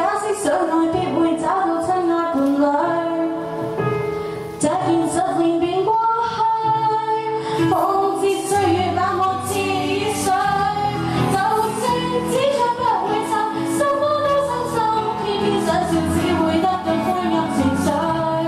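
A young woman singing a Chinese pop song into a handheld microphone over instrumental accompaniment.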